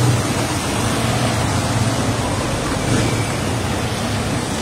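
Steady rushing street background noise, with a low hum that fades in the first moment.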